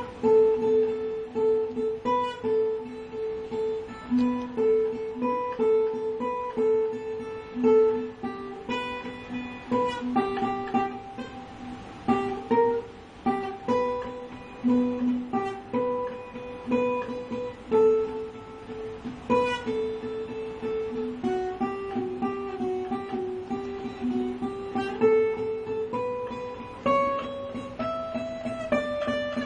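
Acoustic guitar played fingerstyle: a plucked melody of single notes over a repeated low note, climbing higher in pitch near the end.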